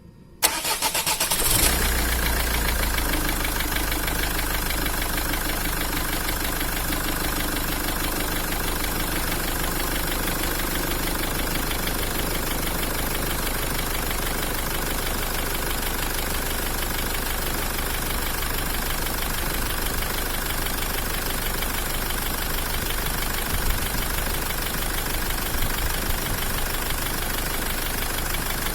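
Common-rail diesel engine cranking briefly and catching about a second in, then idling steadily. It is running for a half-minute injector return-flow (back-leak) test after one Bosch injector was rebuilt.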